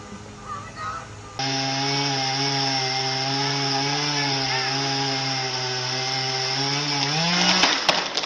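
Two-stroke chainsaw running at steady high throttle, cutting, starting suddenly about a second and a half in; near the end the engine speed rises and the sound breaks off into a few sharp cracks.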